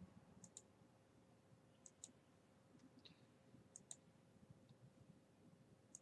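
Faint clicks of a computer mouse, about eight in all, several in quick pairs like double-clicks, spread over a few seconds against near silence.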